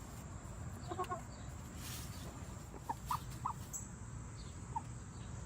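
Backyard chickens making a few short, soft clucks, scattered through a few seconds over a low steady background.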